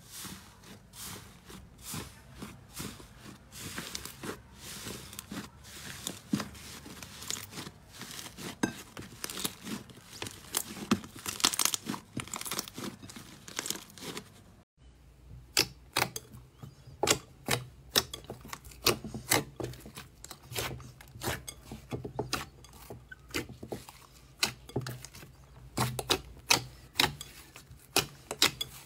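Hands squishing and kneading slime: a dense, soft crackling for about the first half. After a break partway through, a run of separate sharp clicks and pops as fingers press into glossy slime.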